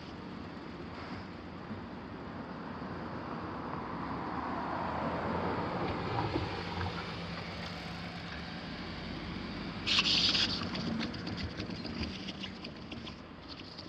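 Train passing through a railway level crossing, its running noise building and then fading, with a falling whine as it goes by. About ten seconds in comes a short loud burst, then a quick run of wheel clicks over the rail joints.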